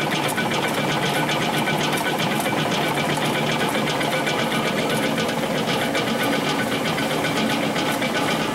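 Hobart L800 80-quart dough mixer running empty, its motor and gear drive giving a steady mechanical whir with a fine, rapid rattle.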